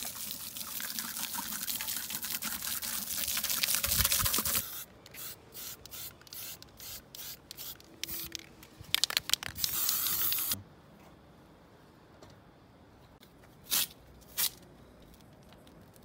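A garden hose spraying water onto car wheels for about five seconds, then a run of short clicks and a hissing blast of aerosol spray paint onto a wheel rim. After that it goes quiet apart from two sharp clicks.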